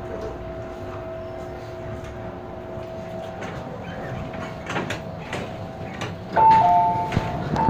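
Interior of a stopped MTR M-Train car: a steady hum with a thin continuous tone and a few faint clicks, then a little over six seconds in the two-tone electronic door chime starts and repeats.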